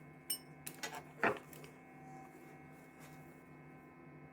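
A quick run of small clicks and a short rattle as a jacket zipper and its slider are handled, all within the first second and a half, over a faint steady hum.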